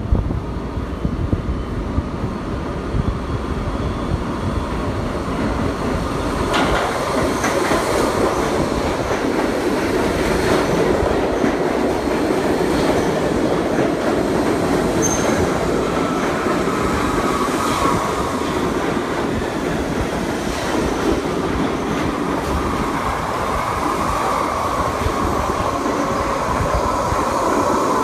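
Kawasaki R68A subway train pulling into an underground station and running past along the platform: a continuous steel-wheel-on-rail rumble with a few sharp clacks over the rail joints. A thin, wavering squeal comes in during the last third.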